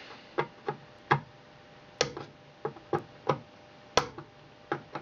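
Side cutters snipping through the pins of a TL594 integrated circuit on a circuit board, one leg at a time: about ten sharp clicks at irregular spacing, the loudest about two and four seconds in.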